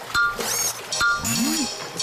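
Cartoon sound effects from a robot: two short electronic beeps about a second apart. A sliding tone follows each beep; after the second it is a low whirr that rises and then falls.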